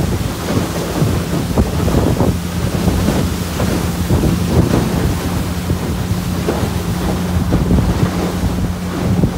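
Outboard motor of a motorized river canoe running steadily at speed, a constant low drone, with wind buffeting the microphone and choppy water splashing against the hull.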